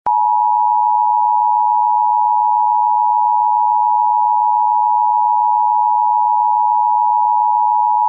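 Emergency Alert System attention signal: a loud, steady two-tone alert (853 and 960 Hz sounded together), held unbroken without any change in pitch.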